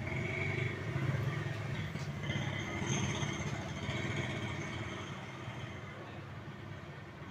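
A motor vehicle engine running close by as a steady low hum, fading toward the end.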